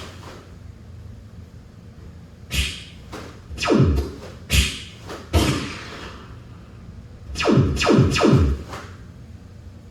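Electronic sound effects from a taekwondo punching tool, each a sharp hit that sweeps quickly down in pitch, set off by punches. About nine come in quick groups, the first near the start and the last group near the end.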